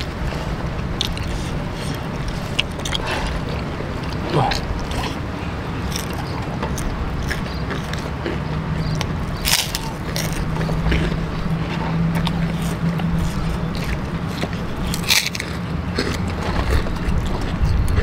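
Eating sounds: chewing and crunching on crispy krupuk crackers, with scattered crackly clicks and two sharp crunches, one about halfway through and one about 15 seconds in. Underneath runs a steady low rumble.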